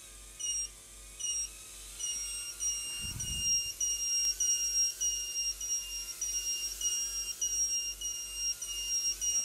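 Happymodel Mobula7 tiny whoop micro drone spinning up and lifting off the bench: a high-pitched propeller hiss rises about two seconds in, with a short low thump about a second later. Through it runs high-pitched electronic beeping, short beeps about a second apart at first and then almost unbroken.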